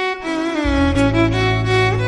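Background music: a bowed string melody with sliding notes, joined about half a second in by a held low note.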